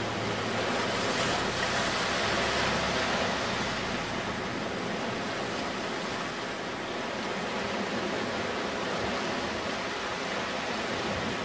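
Steady rushing noise of small sea waves washing against a rocky, pebbly shore.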